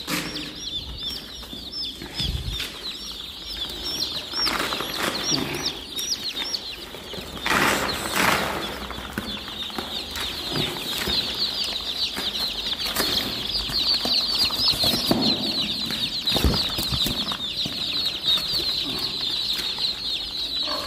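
A boxful of chicks peeping continuously, many short high peeps overlapping into a steady chorus, with brief louder scuffles about four and eight seconds in.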